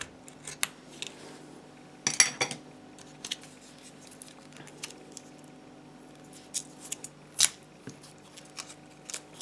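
Knife blade prying at the plastic shell of a Vauxhall Corsa key fob to get at the battery: scattered sharp clicks and scrapes, with a short burst of scraping and clicking about two seconds in and a single loud click about seven and a half seconds in.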